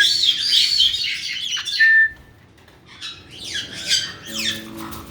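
Several caique parrots calling: busy high-pitched chatter and squawks for about two seconds, a brief lull, then a run of quick downward-sweeping calls.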